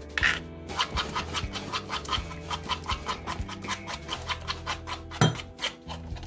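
Metal utensil scraping and grinding wet achiote paste in a stone molcajete, in quick even strokes about five a second, with one sharper knock against the bowl about five seconds in.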